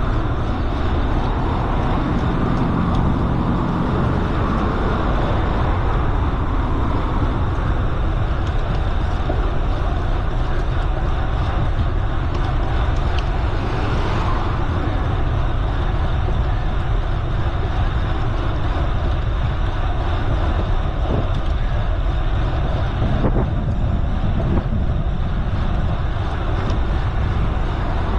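Steady rushing noise of a bicycle ride: wind rumbling on the microphone over the hum of tyres rolling on the road.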